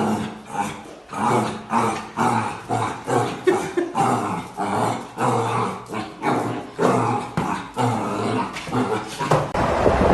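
A dog vocalising in a quick series of short growls and yips, about two a second, stopping shortly before the end, where steady wind-like noise takes over.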